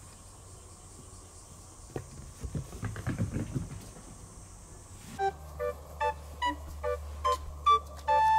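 Soft patter and light knocks of a kitten's paws on a wooden floor, then about five seconds in a light plinking background tune starts, with about two notes a second.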